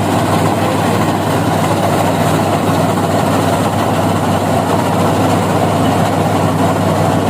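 Combine harvester running steadily while cutting and threshing rice: a constant, loud engine drone with the rattle of the machine's working parts.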